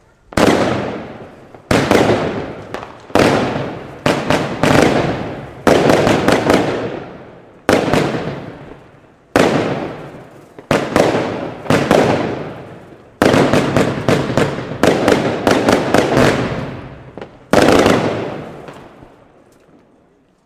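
Aerial fireworks bursting overhead, a sharp bang every second or two, each fading away over a second or so. In places several cracks come in quick succession.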